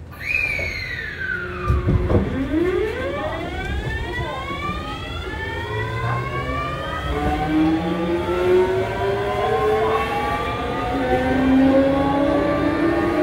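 Kintetsu 7000 series train's Mitsubishi GTO-VVVF inverter and traction motors pulling away from a stop. The inverter tone falls steeply in the first two seconds, then several tones climb together as the train accelerates, over a low rumble of motors and wheels.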